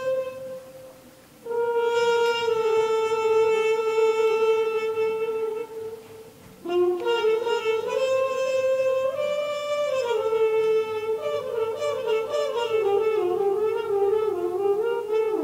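Muted trumpet playing: a long held note that breaks off, a second long held note that sags slightly in pitch, then after a short pause a phrase of quicker notes climbing and falling.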